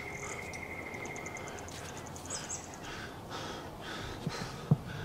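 Outdoor bush ambience with an insect trilling in a fast pulsed high tone that fades out about a second and a half in, overlapped by a rapid, higher chirping run. Soft swells of hiss follow, then two short, dull knocks near the end.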